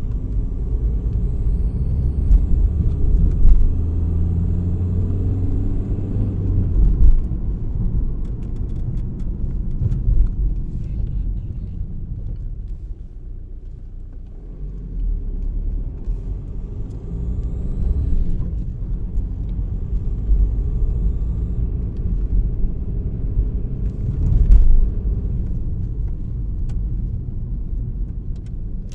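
VW Golf 4's 1.9 TDI AXR four-cylinder diesel running with a heavy, uneven rumble that swells and eases at times. A faint high squealing whistle rises and falls twice, about a second in and again past the middle; the owner places this squeal in the EGR valve/turbo area.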